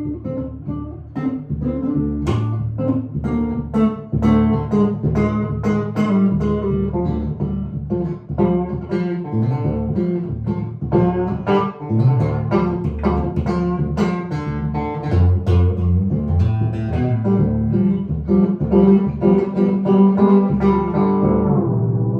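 1955 Gibson ES-295 hollowbody electric guitar with P-90 pickups, played clean through an amp: a continuous run of plucked single notes and chords over low bass notes, with a warm, thumpy twang.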